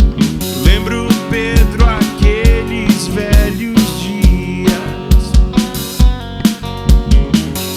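Live band playing an instrumental passage: drum kit with a steady kick, bass and guitar, with a lead melody line wavering and bending in pitch over them.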